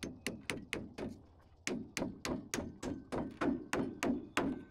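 Hammer driving a toenail into a wooden floor joist: quick, sharp blows about four a second, in two runs with a short pause about a second in.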